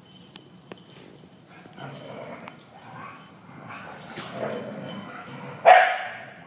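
Big dogs playing, with one sharp, loud bark near the end and some lighter dog noises before it; scattered light clicks, like claws on the hard floor, early on.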